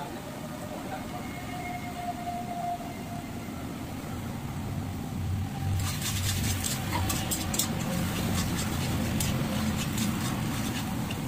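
Spatula scraping and clattering against a metal kadai while chopped vegetables are stir-fried, the sharp scrapes and clicks starting about six seconds in, over a steady low rumble.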